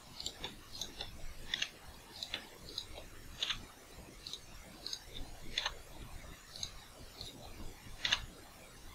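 Faint, irregular clicking of a computer mouse and keyboard: mouse-button clicks and key taps as edges are selected and filled. A few slightly louder clicks come about every two seconds.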